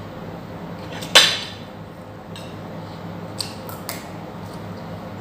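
Eating utensils knocking on a plate during a meal: one sharp clatter with a short ring about a second in, then a few light taps, over a steady low hum.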